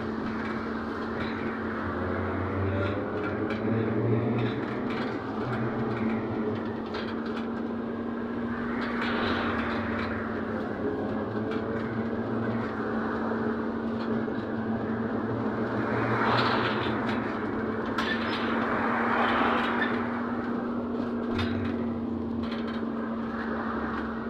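Cabin noise of a ZiU-682G trolleybus under way: steady running and road noise with a constant hum, swelling louder a few times as it drives.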